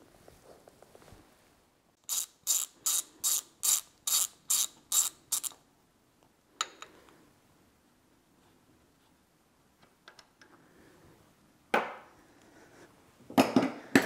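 Ratchet wrench being worked in about ten quick strokes over roughly three seconds, its pawl clicking on each swing, while bolts on the milling head casting are undone. A few metal knocks follow, with a louder clatter of metal clunks near the end as the casting is handled.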